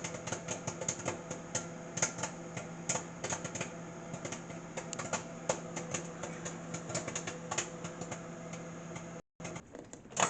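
Microwave popcorn popping inside a running microwave oven: rapid, irregular pops over the oven's steady hum, thinning out in the later seconds.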